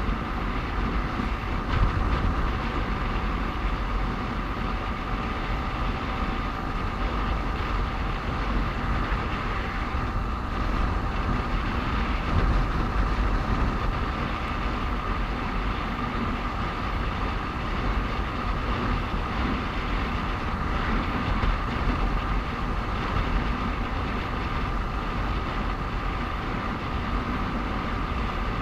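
Motorcycle on the move: engine running steadily under a constant rumble of wind and road noise on the onboard microphone, with a steady whine.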